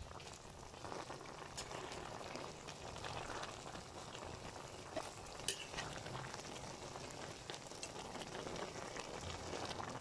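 Frog stew with rice noodles simmering and sizzling in a metal pan, with a metal ladle stirring and clicking against the pan a few times, sharpest about five and a half seconds in.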